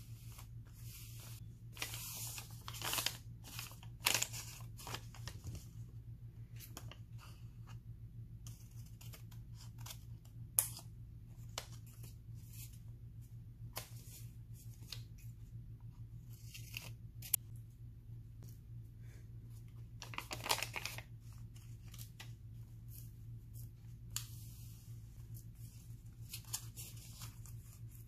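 Hands handling decorative paper on a scrapbook page: intermittent rustling and tearing of paper, with a few sharp clicks and taps, over a faint steady low hum.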